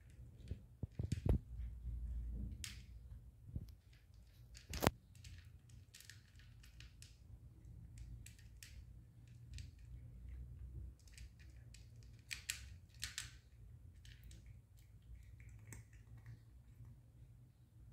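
A cat crunching dry kibble from a dish: soft, irregular crunches and clicks as it chews. Two louder sharp knocks come about a second in and near five seconds in.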